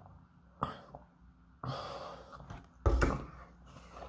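A breathy exhale after a drink through a straw, then a loud thump just before three seconds in as the paper cup is set down on the table.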